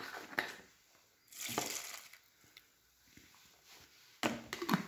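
Frothy homemade tyre bead lubricant (water, synthetic oil and dish soap) poured from a jar into a plastic tub, with a short hissing splash about a second and a half in. A cluster of light knocks near the end comes from handling the jar and tub.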